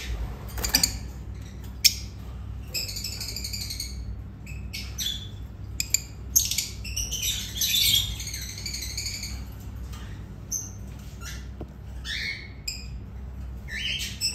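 Caged lovebirds chattering: many overlapping shrill squawks and chirps, with a sharp click about two seconds in.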